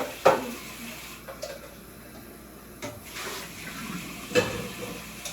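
Kitchen tap running into a sink, with a few sharp knocks over it, the loudest about four seconds in.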